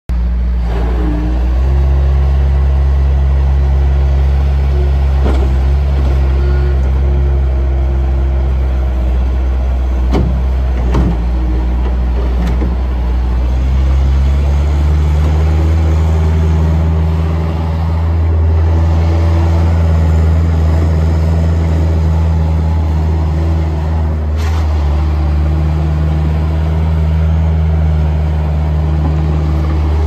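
Bobcat T140 compact track loader's 49 hp Kubota diesel engine running steadily as the machine maneuvers on its rubber tracks, its pitch stepping up a little about halfway through. A few short knocks are heard over the engine.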